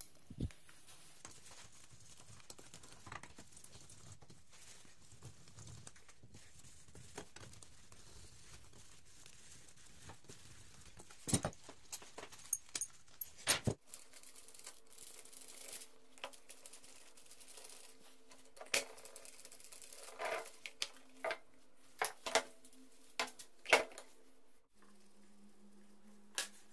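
Gloved hands handling the metal parts of a Suzuki GS 150 motorcycle engine: scattered sharp clicks and knocks as parts are moved and set down, busier in the second half. A faint steady hum comes in about halfway.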